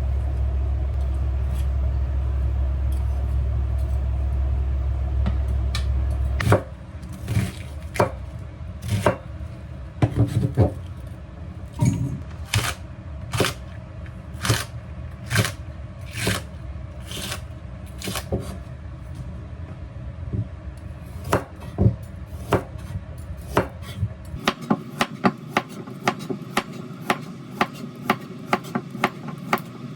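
A steady low rumble for the first six seconds or so, then a kitchen knife chopping on a cutting board: separate cuts at first, turning into a quicker, even run of chops near the end.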